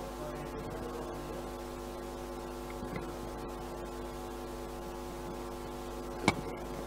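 Steady electrical hum from a PA sound system, with one sharp click about six seconds in.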